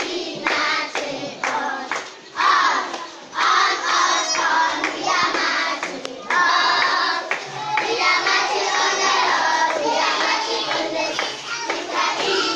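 A group of young children singing together in chorus, with steady hand clapping of about two claps a second.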